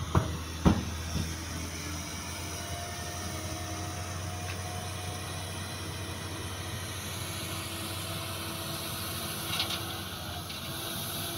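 Diesel engines of heavy earthmoving machinery, a tipper truck and a bulldozer, running steadily as a low drone. Two sharp knocks in the first second.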